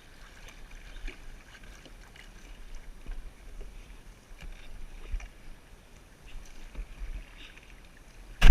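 Canoe on a river: paddle strokes and water splashing and dripping against the hull, with scattered light knocks. A single sharp, loud knock near the end.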